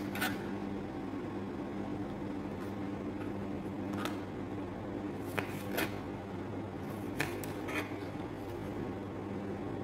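Kitchen knife slicing tomato on a plastic cutting board: about six short taps of the blade against the board, spaced irregularly, over a steady low hum.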